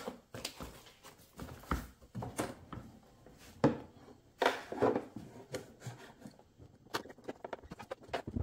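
Scattered knocks, clicks and rubbing as the air box is worked loose by hand from the engine of a 1992 Ski-Doo Mach 1 snowmobile.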